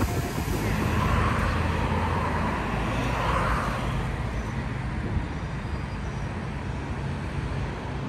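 Road traffic noise. A motor vehicle passes during the first few seconds, louder for a moment, then a steady hum of traffic.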